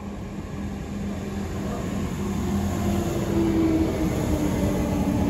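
Comeng electric suburban train approaching and running past along the platform. Wheel-on-rail rumble grows steadily louder, and a steady motor whine comes in about halfway through.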